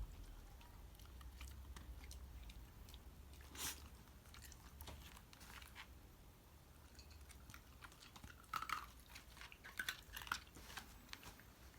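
Shiba Inu eating, faint crunching and chewing in scattered bites, with a quick run of crunches about two thirds of the way through.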